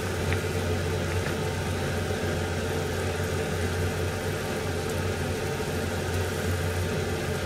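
Steady low hum and hiss of kitchen noise, unchanging throughout, while a pan of soup cooks on a gas stove.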